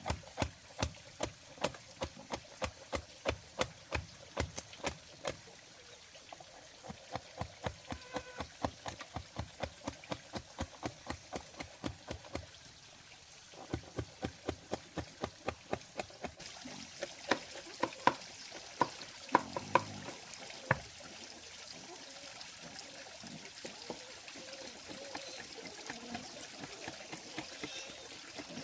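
Rhythmic knocking, about two to three sharp strikes a second, with a short pause about twelve seconds in; a few louder, sparser strikes follow about seventeen to twenty-one seconds in, then only faint scraping and rustling.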